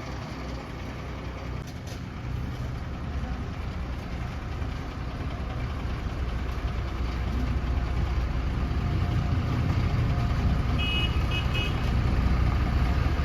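Heavy diesel engine of a backhoe loader or tipper truck running steadily, growing louder about halfway through, with a few short high beeps near the end.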